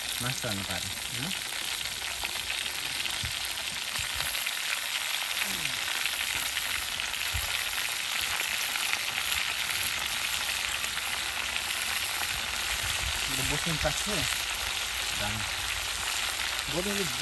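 Food frying in hot oil in a pan, a steady sizzle that runs without a break.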